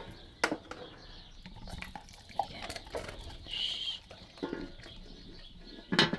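Small knocks and clicks, then the lid of a metal treat bin clattering as it is lifted open near the end. A brief high squeak comes about halfway through.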